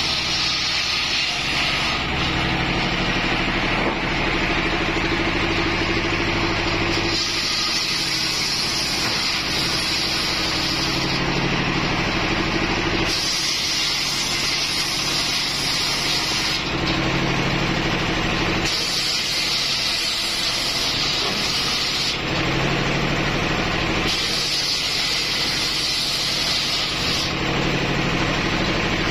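Homemade circular table saw, belt-driven by a single-cylinder stationary diesel engine, ripping the edges off hardwood planks. The engine runs steadily throughout, and the blade's high cutting hiss rises over it in about five passes of three to four seconds each, falling back to the engine and free-spinning blade between cuts.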